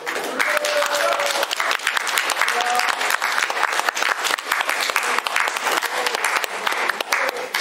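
Audience applauding, a dense burst of clapping that starts abruptly at the end of the closing words and keeps up steadily.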